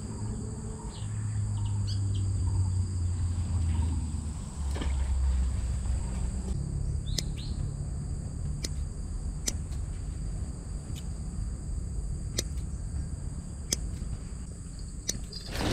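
Small scissors snipping a slice of bread, a sharp click every second or so through the second half, over a steady high insect drone and a low droning hum.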